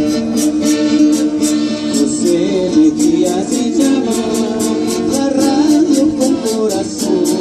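Band music with a steady shaker beat of about four strokes a second under held chords, and a wavering melody line through the middle.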